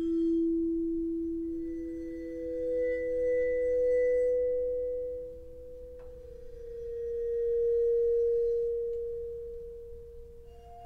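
Vibraphone bars bowed with a cello bow, with the sustain pedal held down. Long, pure tones swell and fade, and each note rings on under the next: a low note, a higher one entering about a second and a half in, another around the middle, and a higher note starting near the end.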